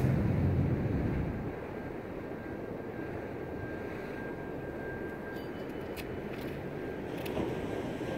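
A low engine drone fades away over the first second and a half, leaving a steady, quieter background rumble of outdoor noise.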